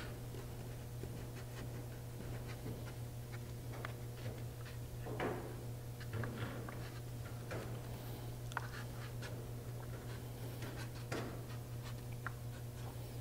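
Razor blade scraping and scratching wet paint on illustration board in short, irregular strokes.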